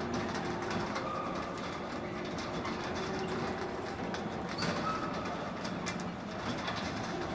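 Carousel running: a steady mechanical rumble with scattered small clicks and clatter.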